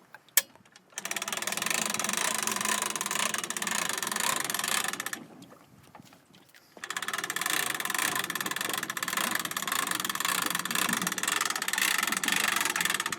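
Battery-powered electric trailer winch running under load, reeling in its cable, in two runs: a click about half a second in, a whirr from about a second in to about five seconds, a pause of a second and a half, then running again.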